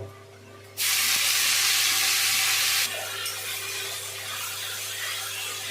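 Food sizzling in hot oil in a pan: a loud sizzle starts suddenly about a second in, then after about two seconds settles into a quieter, steady sizzle. A steady low hum runs underneath.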